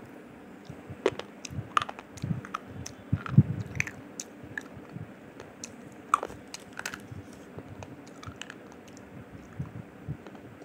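A person biting and chewing white mini-triangle slate pencil, giving irregular crisp crunches; the sharpest crunch comes about three and a half seconds in.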